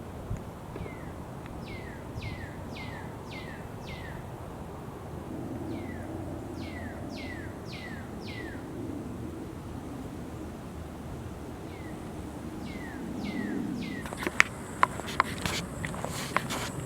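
A bird calling in three runs of five or six sharp down-slurred notes, about two a second, over a faint low rumble. Near the end, steps begin with sharp crunching clicks.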